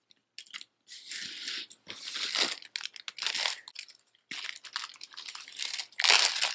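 Packaging crinkling and rustling in irregular bursts as jewelry is handled, loudest near the end.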